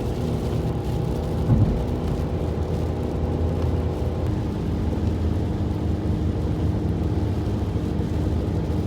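Steady drone of a car's engine and tyres on a snowy highway, heard from inside the cabin, with one short thump about one and a half seconds in.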